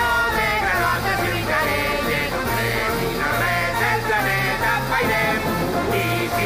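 Anime opening theme song sung in Valencian, with a voice singing the lyric lines over a band backing.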